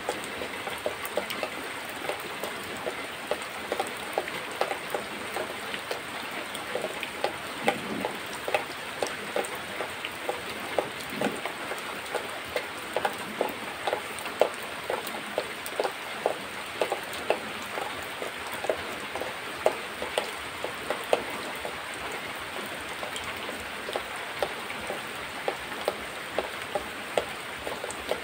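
A cow being milked by hand into a plastic bucket: rhythmic squirts of milk hitting the froth already in the pail, about two or three a second, over a steady hiss.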